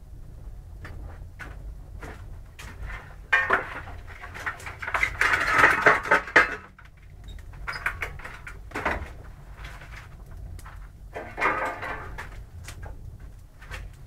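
Metal clanking and scraping as a fire-fed boiler is tended by hand, with the loudest clatter from about three to six seconds in and shorter bursts later. A low steady rumble runs underneath.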